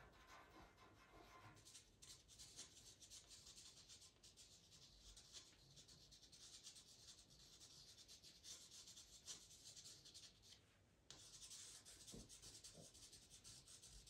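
Faint scratching and rubbing of a pastel pencil on pastel paper, in many short strokes, with a brief pause shortly before eleven seconds in.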